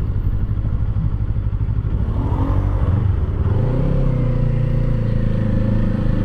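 Kawasaki Eliminator 450's parallel-twin engine running under way. The engine note dips and climbs back about two to three seconds in, then holds steady.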